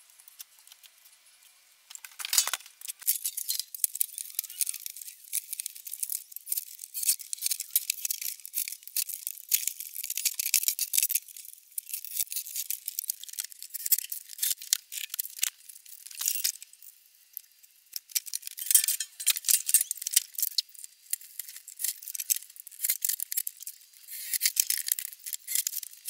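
Metal clinking and rattling as corrugated steel roofing sheets and their screws are handled and fastened down, a thin, tinny clatter of many small sharp clicks starting about two seconds in.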